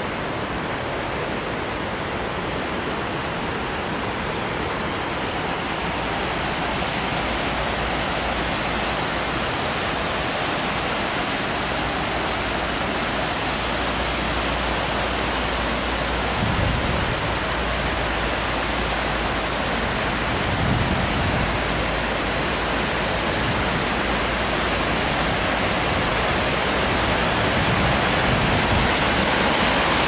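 River water rushing over rocky shoals and spilling through rapids: a steady rushing noise that grows slowly louder.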